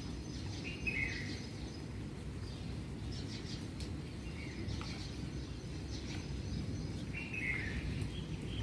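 Steady low rush of rain on a wet street, with a bird calling over it: a short downward call about a second in and again near the end, and a few faint chirps between.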